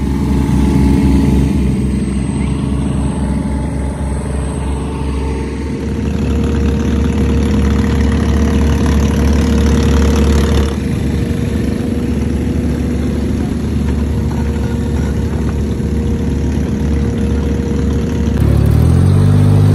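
Off-road dune buggy engines idling steadily, with an engine revving up near the end.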